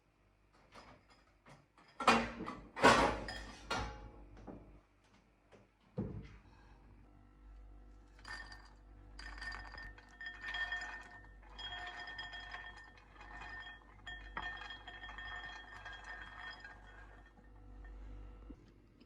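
Glassware and dishes clinking: a few loud sharp clinks about two seconds in, then a long run of lighter clinks that ring on.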